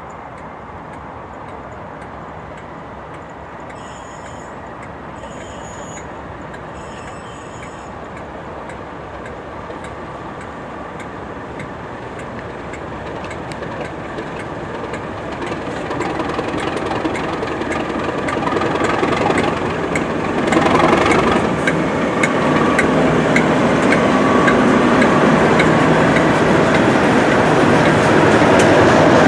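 Colas Rail Class 37 diesel locomotive with its English Electric V12 engine running, growing steadily louder as it approaches and passes close by. Wheels click over the rail joints in the last third as the locomotive and coaches go past.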